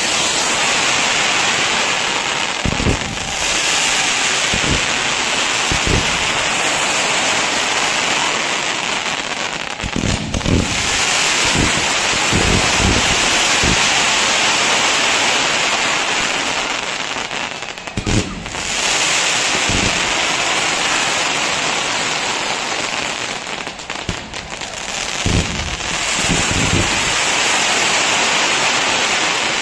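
Traditional Kerala temple fireworks barrage: a dense, unbroken crackle like heavy rain, with heavier bangs breaking through every few seconds. The bangs come in a cluster around ten to thirteen seconds in, as a sharp one about eighteen seconds in, and again near the end.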